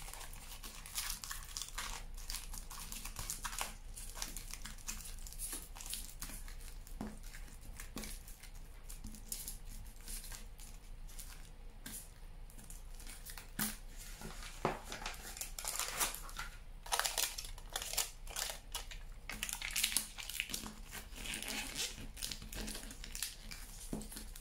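Aluminium foil being crumpled and squeezed by hand around a wire armature, in irregular crinkling spurts that come thickest near the start and through the second half.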